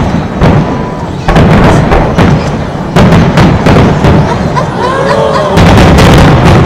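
Aerial fireworks shells bursting in quick succession: a dense run of loud booms and thuds with crackle, the heaviest barrage near the end.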